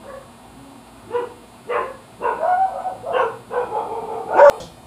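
A dog barking, about six short barks roughly half a second apart starting about a second in, the loudest near the end.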